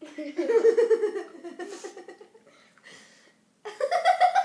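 Child laughing in two bursts of high-pitched giggles, each falling in pitch: one right at the start lasting about two seconds, another starting near the end.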